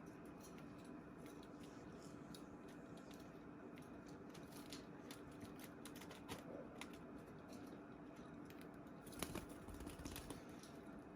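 Baby budgies moving about in their cage: faint, irregular clicks and scratches, a few louder ones about nine seconds in, over a steady low hum.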